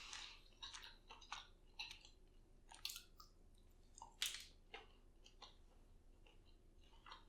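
A person chewing a fried cheese curd coated in crunchy Cheetos, close to the microphone: faint, irregular crunches, with two louder crunches near the middle.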